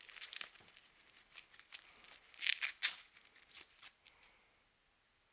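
Paper and cardboard packaging crinkling and tearing as a vacuum tube is unwrapped from its box: a run of short rustles and crackles, loudest about two and a half seconds in, stopping about four seconds in.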